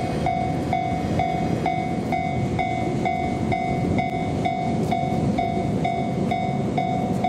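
Railway level-crossing alarm ringing in an even rhythm, about two rings a second, over the rumble of a passing train.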